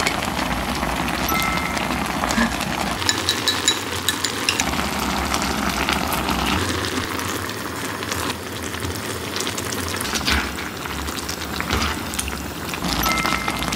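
Spicy seafood and bean-sprout braise bubbling and sizzling in a cast-iron skillet, with chopsticks and a spoon stirring and clicking against the pan. Partway through, starch water is poured in while the stew is stirred to thicken the sauce.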